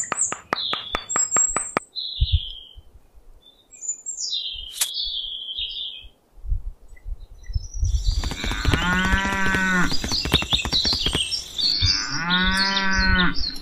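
Cow mooing, two long moos about a second and a half each in the second half, over steady bird chirping. In the first two seconds, a quick, even run of light hammer taps.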